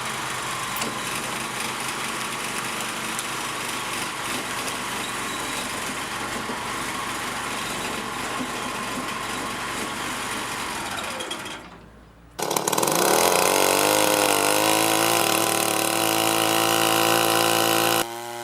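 Heavy wood-processing machinery running with a dense grinding rattle. About twelve seconds in it drops away briefly and gives way to a different steady engine note with a whine.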